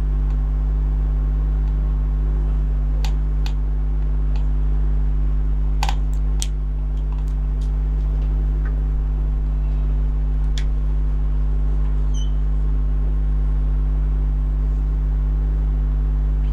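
A steady low hum, with a few faint clicks and taps of a marker writing on a whiteboard.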